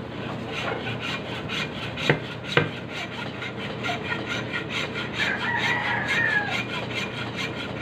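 Hacksaw with a metal-cutting blade rasping back and forth through a very hard, porous block, about three strokes a second, with two sharp knocks about two seconds in. A rooster crows about five seconds in.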